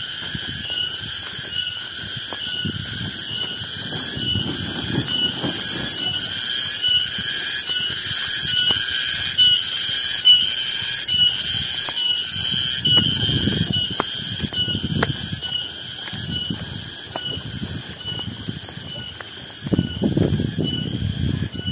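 Cicadas (tonggeret) calling in a loud, high-pitched pulsing chorus, about two pulses a second.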